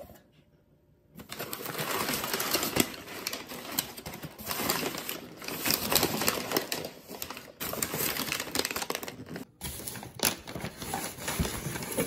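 Crumpled brown kraft packing paper rustling and crackling as hands dig through it in a cardboard box. It starts about a second in and pauses briefly about three-quarters through.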